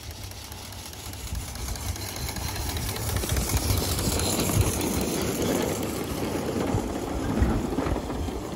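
A miniature 7.25-inch gauge ride-on steam locomotive and its riding cars passing close by, with a rapid mechanical running rhythm and wheel noise on the track. It grows louder as the train comes alongside, peaks a few seconds in, and fades slightly as it moves away.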